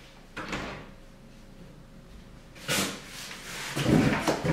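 An interior door clicking open, then a large strapped cardboard box being lifted and carried, with knocks, cardboard rustling and low thumps near the end.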